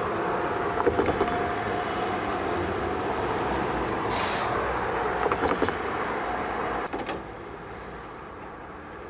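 Tram running with a steady rumble, a few clunks, and a short hiss about four seconds in; the sound dies down near the end.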